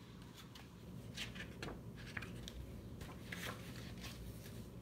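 Faint paper rustling and a few light ticks as a page of a hardcover picture book is turned and the book is handled.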